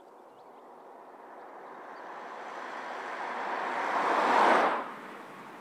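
Camouflaged Volkswagen T-Cross prototype approaching and driving past close by: a rushing road noise that swells steadily to a peak about four and a half seconds in, then falls away suddenly as the car goes by.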